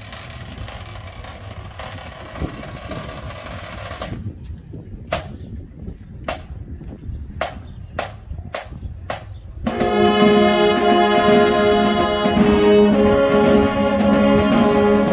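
A brass band starts playing a hymn tune in full sustained chords about ten seconds in. Before that comes a run of sharp taps about twice a second, and before the taps a steady background noise.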